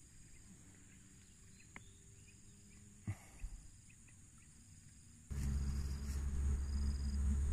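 Faint insects chirping in short, evenly repeated high pulses, with a couple of light knocks about three seconds in. About five seconds in a much louder low rumble starts abruptly and holds steady, the insect pulses still going over it.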